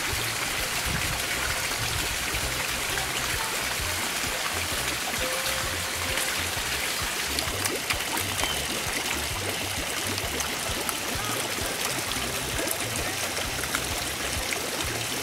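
Steady running, trickling water from a garden fish pond, with music playing underneath.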